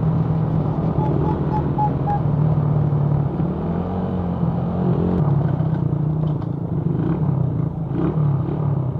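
Motorcycle engine running steadily under way, with wind and road rumble on the rider's mic. A brief run of five quick beeps comes about a second in.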